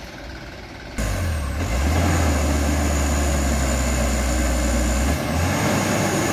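Heavily loaded Mitsubishi Canter HDX truck's diesel engine labouring uphill, coming in abruptly about a second in as a steady low drone with a thin high whine above it. The drone drops slightly about five seconds in.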